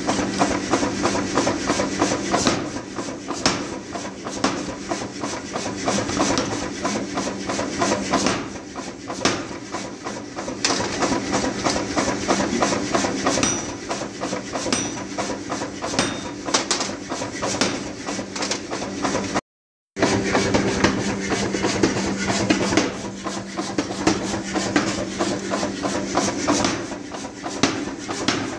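Mechanical power hammer running with a steady hum and striking in rapid, repeated blows as it forges a red-hot steel bar into a blank for metal-cutting shears. The sound drops out for about half a second about two-thirds of the way through.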